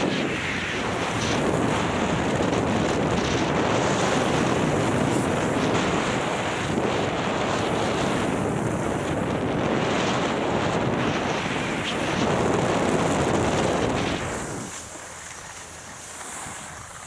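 Wind rushing over the microphone mixed with skis hissing over packed snow during a downhill run, dying down about fourteen seconds in as the skier slows.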